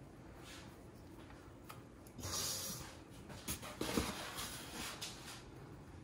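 Hands wrapping food on a kitchen counter: a brief rustle about two seconds in, then a few soft knocks and taps.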